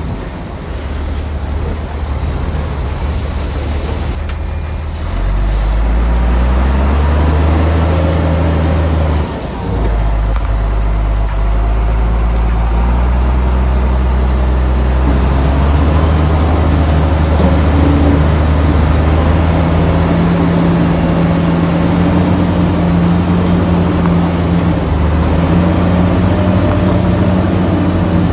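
Heavy diesel engine working hard. It revs up about five seconds in, drops suddenly near ten seconds, then runs steadily at high revs.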